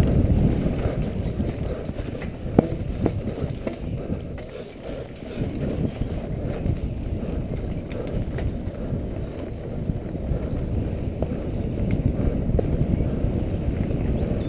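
Wind buffeting a helmet-mounted camera's microphone during a fast mountain-bike descent on a dirt trail, mixed with the rumble and rattle of the bike over the ground and scattered sharp clicks and knocks. The noise eases briefly about four to five seconds in.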